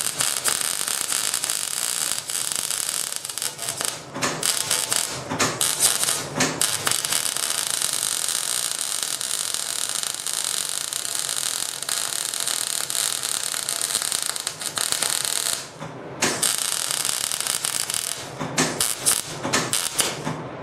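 Arc welding: a weld bead being run where a steel tubing leg meets a large steel pipe, giving a steady crackle. It breaks off briefly a few times, stops for a moment about three quarters through, then comes back as several short bursts.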